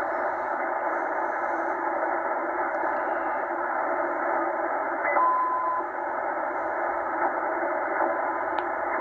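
Tecsun H-501X shortwave receiver in USB mode giving out a steady, muffled hiss of band noise while being tuned across the 4.3–4.4 MHz marine band. About five seconds in, a brief steady whistle from a carrier comes through as the dial passes a signal.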